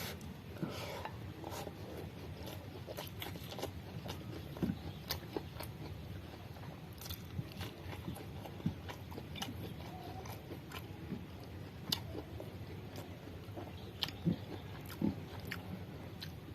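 A person chewing and biting close to the microphone, eating urap of blanched young lamtoro (pete cina) leaf shoots: irregular small wet clicks and smacks of the mouth.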